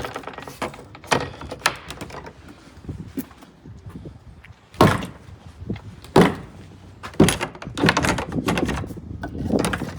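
A door being worked by hand: a series of sharp knocks and clunks, spaced a second or more apart, with a cluster of clunks near the end and light rattling of its metal hardware in between.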